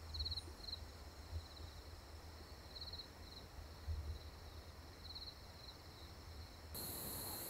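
Faint evening countryside ambience: short, rapid chirping trills from insects, one every second or two, over a low rumble. Near the end a louder, steady high-pitched insect chorus takes over.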